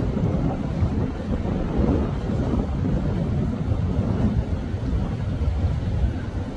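Low, steady rumble of motorboat engines and wash, with wind on the microphone.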